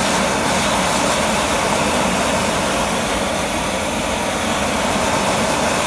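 A 100,000 BTU high-pressure propane cast-iron wok burner running at full flame, a loud, steady rushing of gas and flame.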